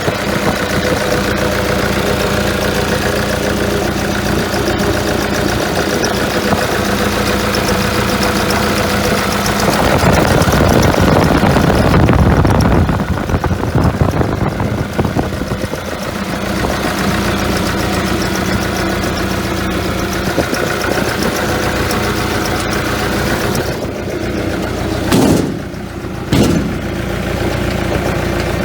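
Hitachi ZX280LC-3 tracked excavator's diesel engine running steadily. About ten seconds in it grows louder and rougher for about six seconds, then settles back. Two short, sharp sounds come about a second apart near the end.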